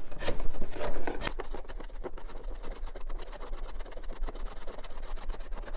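Hand smoothing plane taking light, skewed passes across the end grain of a walnut cutting board. Several short scraping strokes are loudest in the first second and a half, then give way to a quicker run of fainter scrapes.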